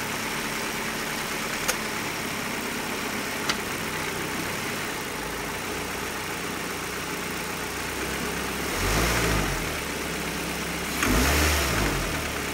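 2005 Ford Focus four-cylinder engine idling steadily, heard with the hood open, and revved briefly twice in the second half, the pitch rising and falling each time. Two sharp clicks come within the first four seconds.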